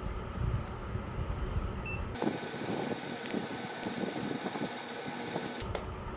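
Steady fan-like background noise. Its character changes abruptly about two seconds in, when the deep rumble drops out and a brighter hiss takes over, then changes back about five and a half seconds in.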